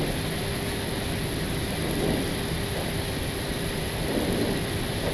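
Steady cockpit noise of an Airbus airliner taxiing slowly onto its stand, engines at idle and air conditioning running: an even rushing hiss with a faint steady hum.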